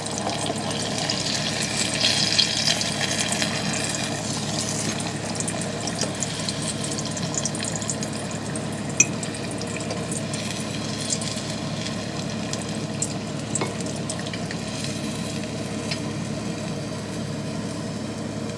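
Floured, egg-dipped goose gizzard pieces sizzling in hot oil in a frying pan, a steady crackle that is loudest in the first few seconds. A few short clicks, one of them sharper about halfway through, from a utensil against the pan.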